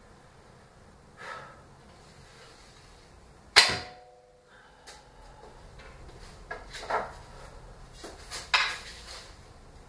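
A 120 lb tri-laminate English warbow shot once, about three and a half seconds in: a sharp, loud crack as the string is loosed, then a brief ringing hum from the bow. Softer clacks and rustles follow as the bow and arrows are handled.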